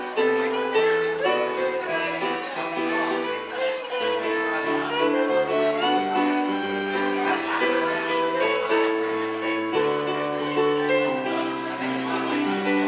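Music led by a violin over held chords and a slowly stepping bass line.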